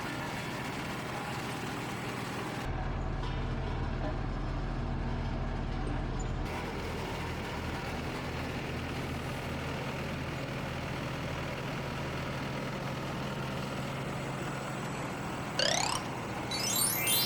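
Road roller's engine running steadily, with a deeper, louder rumble for a few seconds near the start. Near the end come a few quick rising whistle-like sweeps.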